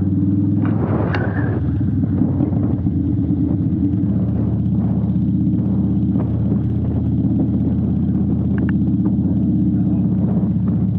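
Harley-Davidson V-twin motorcycle engine running at a steady pitch.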